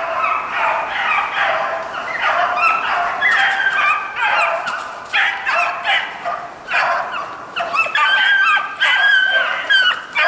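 A pack of hunting hounds baying, several voices overlapping in continuous drawn-out cries, as they run a hare's track.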